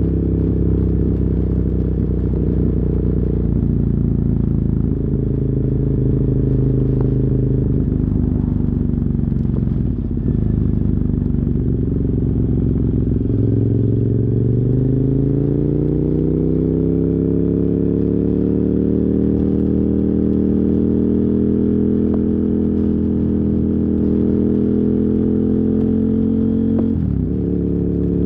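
KTM 990 Super Duke R's 999 cc V-twin through dual Yoshimura carbon exhausts, running under way. The engine note holds steady, drops back about a third of the way in, then rises smoothly in pitch through the middle as the bike accelerates. It holds level until a short break near the end.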